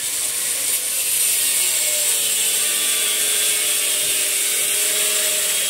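A loud, steady hissing mechanical noise, like a power tool running, with faint held tones underneath.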